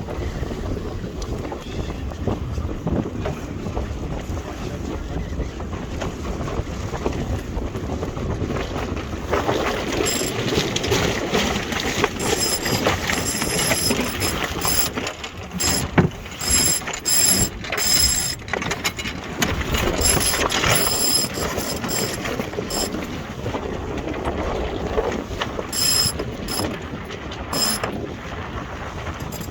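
Wind buffeting the microphone and water rushing along a sailing yacht's hull under way, with intermittent mechanical clicking and rattling from the boat's gear that starts about ten seconds in and comes in irregular bursts.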